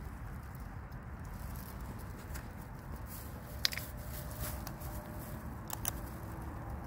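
Footsteps and light rustling through undergrowth, with a few sharp clicks like twigs snapping, the clearest about four seconds in, over a steady low background rumble.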